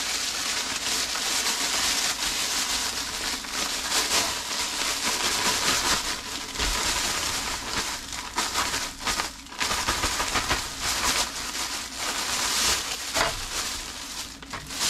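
Plastic oven bag rustling and crinkling continuously as it is handled and filled, with a couple of brief lulls.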